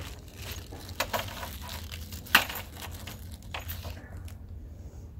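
Hand pop-rivet gun being squeezed on a rivet: a run of sharp clicks and crackles, with one much louder snap about halfway through, typical of the rivet's mandrel breaking off as the rivet sets.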